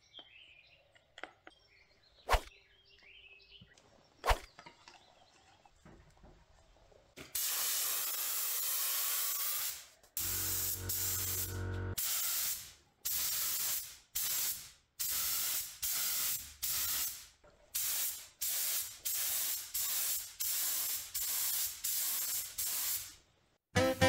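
Paint being stirred in a plastic mixing cup, quiet apart from two sharp knocks, then a gravity-feed air spray gun hissing as it lays on the top coat: one long continuous spray, then a run of short bursts about one a second as the trigger is pulled and released. A low hum sounds under the spray for about two seconds partway through.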